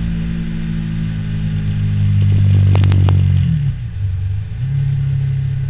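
Motorcycle engine running at steady revs. Its note dips about three and a half seconds in and picks back up about a second later. A quick cluster of sharp clicks comes just before the dip.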